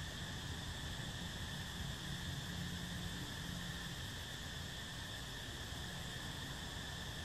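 Steady outdoor insect chorus: a constant, unbroken high-pitched drone over a low rumble.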